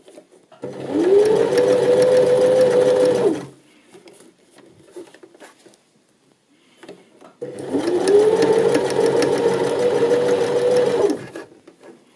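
Janome 725s Sewist sewing machine stitching a jersey cuff onto a sleeve, in two runs of about three and four seconds. Each time the motor speeds up to a steady pace, then stops. Soft fabric-handling clicks fill the pause between.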